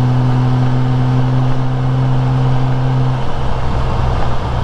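Honda Goldwing GL1500's flat-six engine droning steadily at highway cruise under wind and road noise. Its steady note drops away a little past three seconds in, leaving only the rush of wind and tyres.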